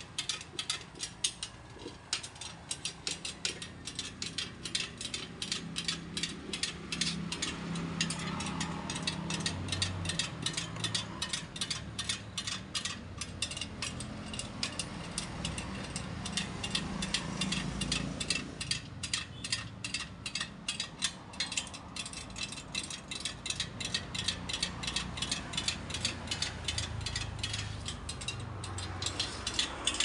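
Loose steel motorcycle spokes clinking and ticking against each other and against the hub and rim as they are laced in, a rapid run of short metallic clicks over a low hum.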